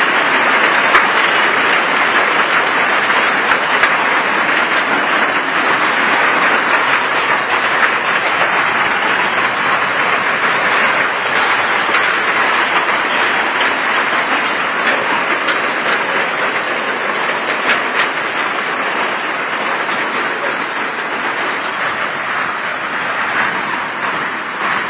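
Hail and rain falling hard together: a dense, steady clatter of many small impacts, easing slightly toward the end.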